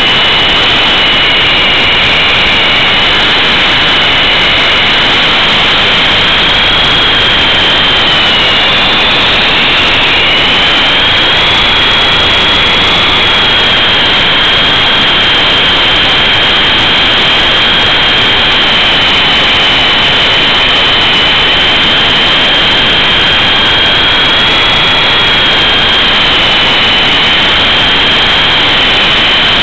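E-sky Big Lama coaxial RC helicopter in flight, heard from its own onboard camera: a high electric-motor whine that wavers slightly in pitch over loud, dense rotor and wind rush. The whine dips and recovers briefly about nine seconds in.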